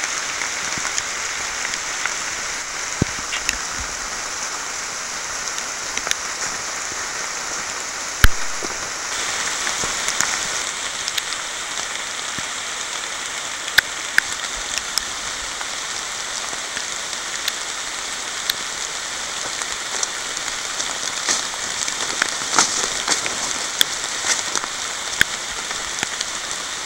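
Steady moderate rain falling on forest leaves, an even hiss broken by scattered sharp ticks and taps. The loudest tap comes about eight seconds in.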